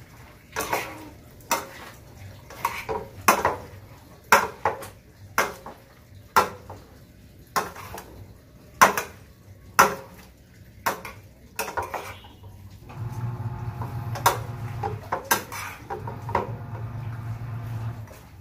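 Metal spoon knocking and scraping against a stainless steel frying pan as chopped grilled pork is tossed with its vinegar and calamansi dressing, about one knock a second. A low steady hum comes in about two-thirds of the way through.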